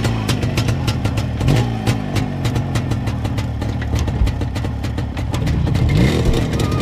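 Vintage Jawa two-stroke motorcycle engine running just after being started, idling with a rapid firing beat and revved up briefly about a second and a half in and again near the end.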